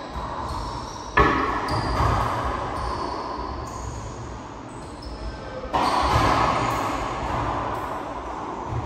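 Racquetball play in an enclosed court: sharp cracks of the ball off racquet and walls, the loudest about a second in and again near six seconds, each ringing on in the court's echo, with lighter hits between.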